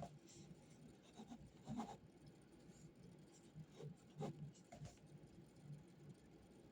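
Faint pen or pencil writing on paper, a few short scratching strokes and light taps against a quiet room hum.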